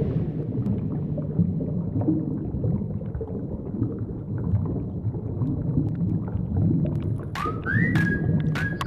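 Low, steady rumbling water noise picked up by a camera held underwater. Near the end, a run of sharp clicks starts, along with high tones that glide up and then hold.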